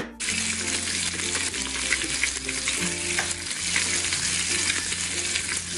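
Recorded sizzling sound effect of a burger frying, a steady hiss with faint crackles, played as a toy patty cooks in a toy frying pan.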